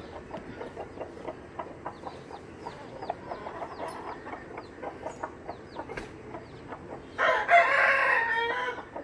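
Aseel rooster crowing once near the end, a single call of about a second and a half, over chickens clucking softly.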